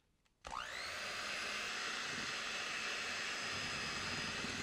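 Electric hand mixer switching on about half a second in, its motor whine rising as it comes up to speed, then running steadily as its beaters whip cake batter.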